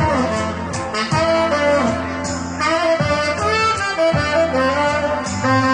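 Live tenor saxophone playing a jazzy melody over a backing track with a bass line and a steady beat.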